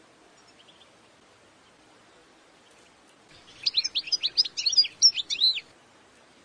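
European goldfinch singing: a few faint chirps, then about halfway through a loud, quick phrase of rapid high notes that slide up and down, lasting a little over two seconds, over a faint steady hiss.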